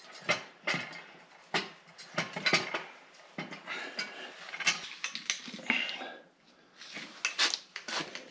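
Steel snowplow mounting parts clanking and clicking as they are handled and fitted together: an irregular run of sharp metal knocks, with a short pause about six seconds in.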